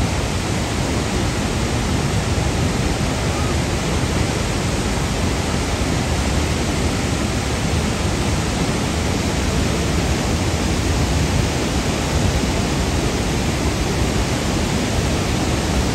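Steady roar of the Iguazú Falls heard up close: an even, loud rush of falling water with no breaks.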